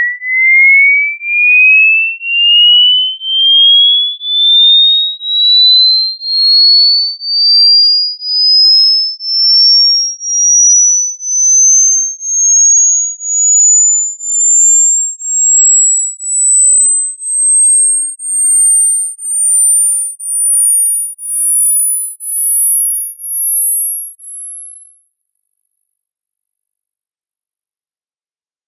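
Hearing-test pure sine tone sweeping slowly and steadily upward in pitch, from a high whistle to a very high, thin pitch. It pulses in volume about once a second, and the pulses grow weaker near the end.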